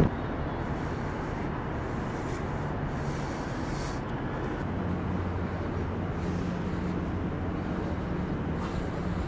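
Steady low city background noise at night, with a faint low hum that fades in and out.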